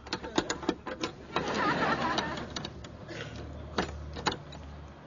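Metal clicking and rattling of a lock being worked by hand at a car door: a few sharp clicks, a longer rattling stretch, then two more clicks.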